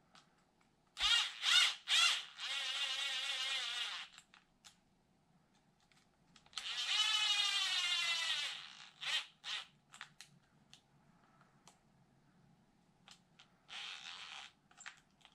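Cordless drill-driver motor whirring as it drives the screws into an RC car's differential case, with three quick blips, then a run of about a second and a half. A longer run follows in the middle, its pitch dropping at the end, then a few short blips and one more brief run near the end.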